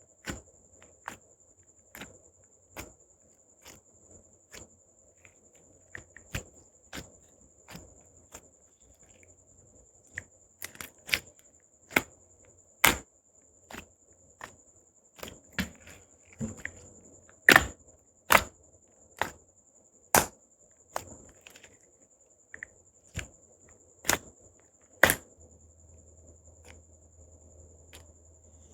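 Air bubbles popping in glossy slime as it is pressed and poked: a string of sharp, irregular pops, about one a second, the loudest ones in the middle stretch, stopping a few seconds before the end. A faint steady high hiss runs underneath.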